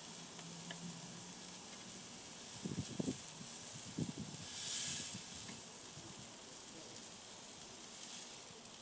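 Steady hiss of pork chops sizzling on a barrel grill, swelling briefly about five seconds in. A few dull knocks about three and four seconds in as the chops are set down on a wooden cutting board.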